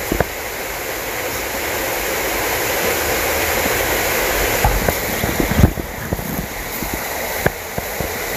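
Rushing creek water, a steady even hiss, with a few short knocks, the loudest a little past halfway.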